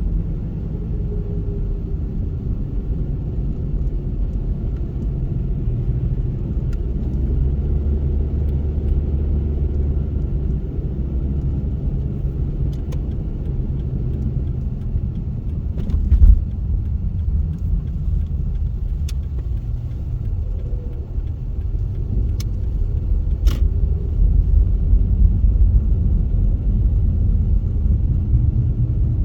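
Car driving through snow: a steady low rumble of engine and tyres, with one sharp thump about halfway through and a few faint clicks.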